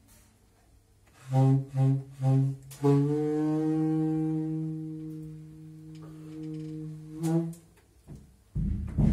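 Saxophone playing three short low notes, then holding one long low note for about four seconds, with a brief note after it. A drum kit comes in with loud hits near the end.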